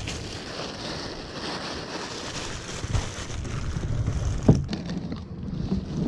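Plastic bag rustling and crinkling as it is handled, with one sharp knock about four and a half seconds in.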